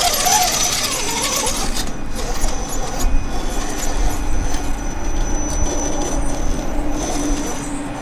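Electric motor and geartrain of a radio-controlled scale rock crawler whining steadily as it creeps over rock, with a thin high whine above it and a few small knocks from the chassis and tyres on the rock.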